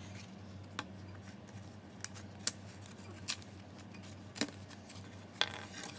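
Pieces of a model kit being pressed out of their punched sheet: about six sharp snaps and clicks at uneven intervals, over a steady low hum.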